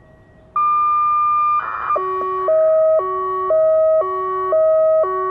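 Federal Signal Modulator 1004 electronic siren sounding its custom hi-lo tone. A single steady tone starts about half a second in. About a second later it switches to alternating between a high and a low pitch, changing every half second.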